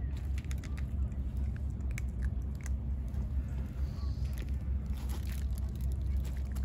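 Cats chewing and crunching dry kibble: scattered small crunches over a steady low rumble.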